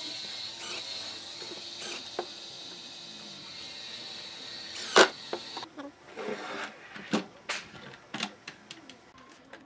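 Cordless driver running with a steady high whine while driving screws through caster mounting plates into pine, broken by a few clicks and one loud sharp knock about five seconds in. After it stops, a scatter of wooden knocks and clatters as the wooden box on casters is handled on the bench.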